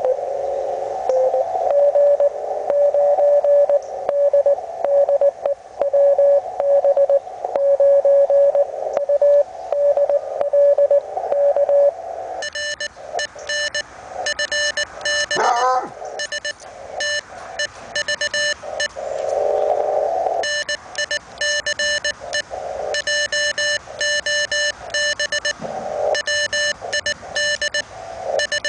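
Morse code from a Hendricks PFR-3A QRP ham transceiver: a keyed beep tone near 550–600 Hz over steady band hiss. About twelve seconds in, the tone turns sharper and buzzier, still keyed in dots and dashes. A quick whistling pitch sweep comes near fifteen seconds.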